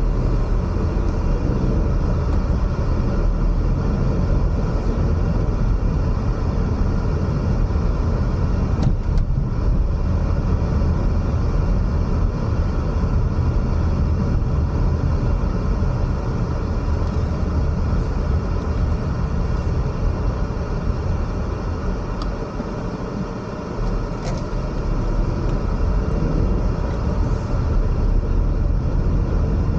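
Car driving along the road: engine and tyre noise make a steady low rumble that barely changes in level.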